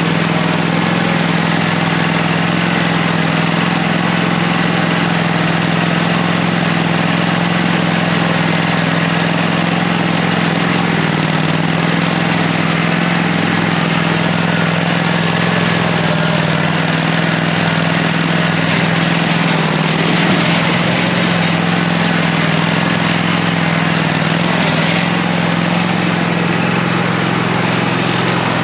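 A small engine running steadily at a constant speed, a low even hum under a noisy mechanical drone, with no change in speed.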